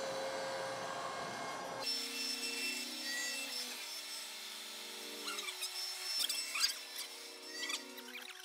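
CNC router spindle cutting a square wood blank round on a rotary 4th axis during a roughing pass. The machine whines in steady tones that shift in pitch every second or so, with scattered crackles of the cut. About two seconds in, the sound changes abruptly from a steady hiss.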